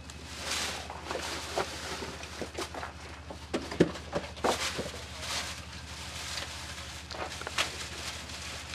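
Plastic bag and cardboard box rustling as chicken scraps are tipped out onto a concrete slab, with scattered knocks and clatters, the loudest a sharp knock about four seconds in. A steady low hum runs underneath.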